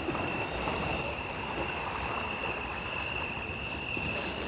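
Crickets trilling steadily in two continuous high-pitched bands, over a low, rumbling background noise.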